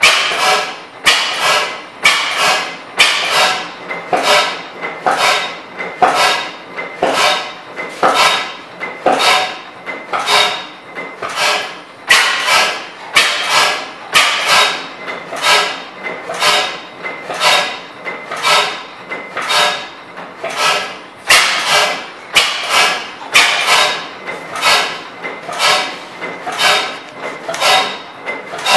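10 HP Schleicher Schumm slide-valve gas engine running at speed on illuminating gas, a hydrogen-and-propane mix, its firing strokes coming as sharp, regular beats, some louder than others.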